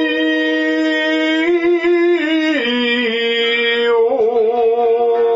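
Shigin, Japanese chanted poetry recitation: a man's voice holds one long drawn-out syllable with wavering ornamental turns. The pitch steps down about halfway through and wavers again near the end.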